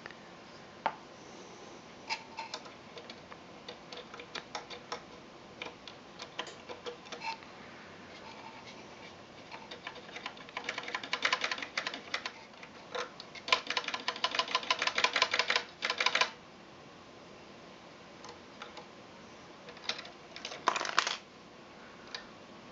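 Small metal clicks and rattles from hand work on a cuckoo clock's movement, with two longer runs of rapid, even clicking in the middle and a short burst of clicks near the end.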